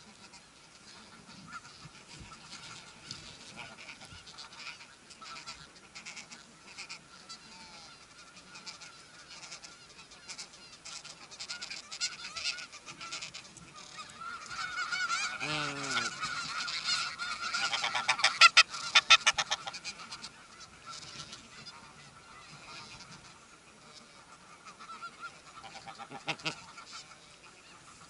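Snow geese honking: a steady chorus of calls from the nesting colony, with a louder run of close honks in the middle, loudest about two-thirds of the way through, and a shorter burst near the end.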